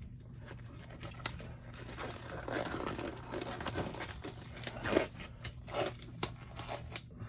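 Handling noise: crinkling and rustling with scattered small clicks and taps, busiest in the middle few seconds.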